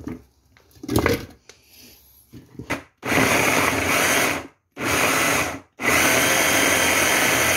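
Countertop blender pulsed three times, the last run longer, chopping apple, daikon, onion and red pepper flakes into a kimchi paste. Before it starts, there are a few faint handling noises and a knock.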